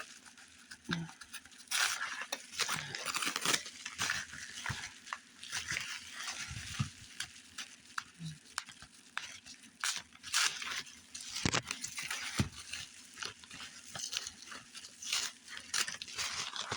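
Plastic bubble wrap being handled and unwrapped: irregular crinkling and crackling with scattered sharp clicks.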